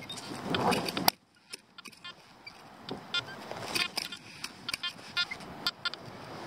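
Metal basket sand scoop digging into beach sand and sifting it: a string of short metallic clicks and rattles, some ringing briefly.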